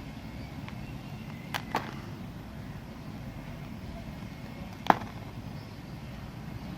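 Knife cutting through a bar of soft soap, the blade clicking against the cutting surface: two quick clicks about a second and a half in, and a single louder click near five seconds, over a steady low background hum.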